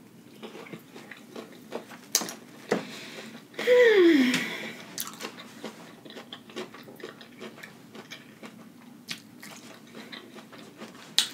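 Close-miked chewing and wet mouth clicks from someone eating a lettuce-wrapped veggie burger, with a loud falling "mmm" hum of enjoyment about four seconds in.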